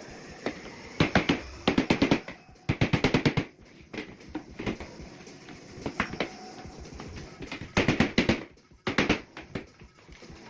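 Several short bursts of rapid, sharp knocks from tool work on kitchen cabinets, each burst about half a second long.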